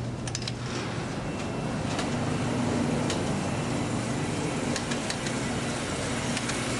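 Steady mechanical hum of a convenience store's coolers and drink machines, with a few light clicks of candy rolls being handled at the start.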